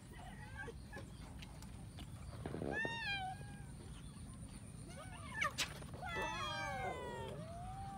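Several cats meowing, their calls overlapping, with short rising-and-falling meows and one long drawn-out meow near the end. A sharp click about five and a half seconds in.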